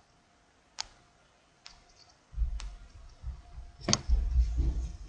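Computer mouse clicks: four sharp clicks, roughly a second apart. From about halfway through, an uneven low rumble runs under them.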